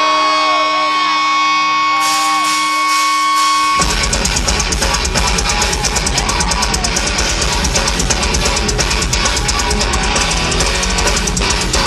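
A live heavy metal band plays loud. For the first few seconds steady held notes ring out, then about four seconds in the drums and guitars come in together with a heavy, driving beat.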